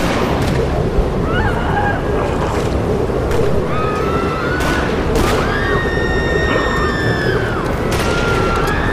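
Multirotor drone flying overhead: its motors and propellers whine, the pitch holding and then rising and falling as it manoeuvres, over a heavy rumble of wind on the microphone with a few brief buffets.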